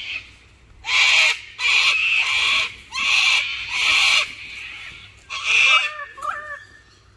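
Sulphur-crested cockatoos screeching: about five harsh, loud screeches in quick succession, each up to about a second long.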